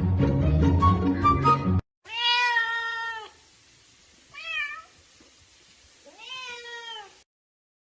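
Background music that cuts off suddenly near two seconds in, followed by a domestic cat meowing three times: a long meow, a short one, then another long one.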